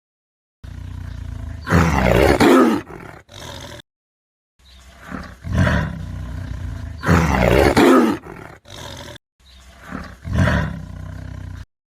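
A big cat roaring: a series of deep, gravelly roars, the loudest about two seconds in and again about seven seconds in. The roars come in short clips that cut off abruptly into silence.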